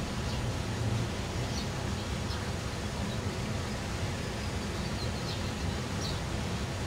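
Steady low outdoor rumble, with a few faint, short high chirps scattered through.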